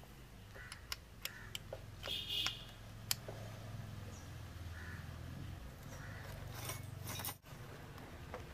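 Scattered light metallic clicks and clinks as a motorcycle's front drum brake shoes and brake panel are handled and fitted back onto the wheel hub, over a steady low hum.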